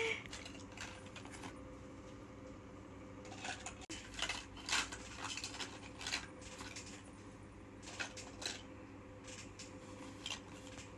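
Small plastic toy fish and a plastic scoop net clicking and clattering together as they are handled, in scattered light taps.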